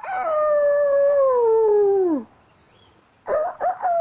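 Rooster crowing: a long drawn-out crow held about two seconds, its pitch falling off at the end, then a second crow beginning with short choppy notes near the end.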